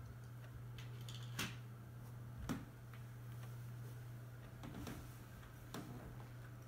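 Faint handling noise: a few scattered light clicks and knocks, irregularly spaced, over a steady low hum.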